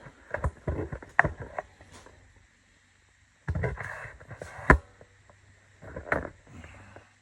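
Scattered knocks and clatter from handling the tire-changing tools and tire, in a few short bursts of sharp hits, with a dead-quiet gap of about a second near the middle.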